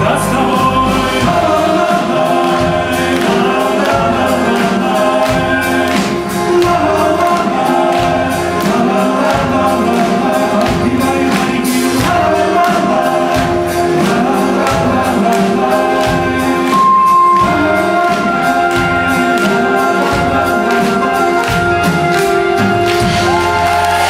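Live band music with a man singing lead vocals over a steady drum beat.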